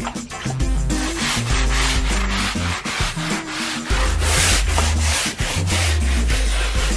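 A hand scrubbing brush rubbing back and forth over wet carpet in rapid strokes, working out the baking soda and vinegar with rinse water. Background music with a bass line plays underneath.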